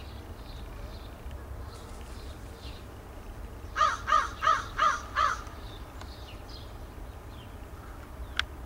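An American crow cawing five times in a quick run, about three caws a second. A single sharp click comes near the end.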